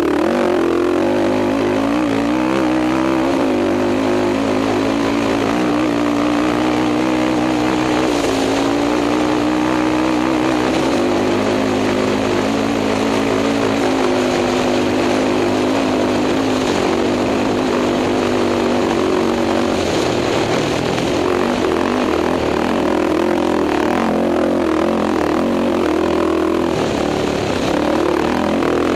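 Race quad (ATV) engine heard from on board at speed, its pitch rising and falling over and over as the throttle and gears change, with steady wind noise on the microphone.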